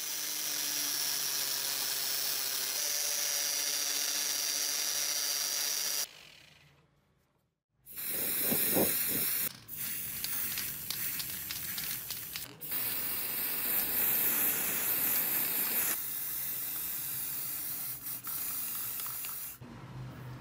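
Angle grinder running steadily with a buffing pad pressed against a steel hammer head, polishing it, for about six seconds. After a short pause, an aerosol can sprays lacquer in long hisses broken by a few short gaps.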